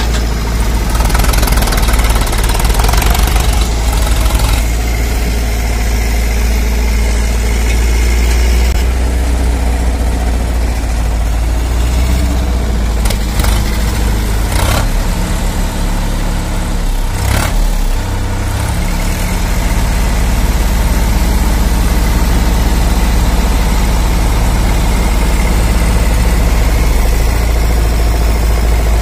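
Sonalika tractor's diesel engine running steadily while its hydraulic lift tips the loaded trolley, getting a little louder in the second half. A few sharp knocks come around the middle.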